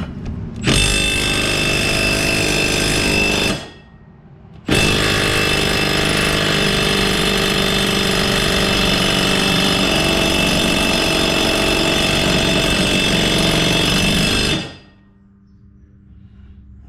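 Milwaukee cordless impact wrench hammering on a bolt in two long bursts, about three seconds and then about ten seconds, with a short pause between. The bolt does not come loose.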